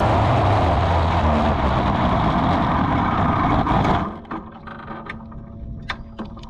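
270 micro sprint car's engine running loud at speed, a dense rasp with no clear note, which drops away about four seconds in. A few light clicks and knocks follow.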